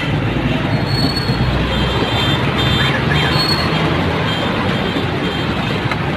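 Busy street traffic noise: a steady low rumble with several short high-pitched squeaks.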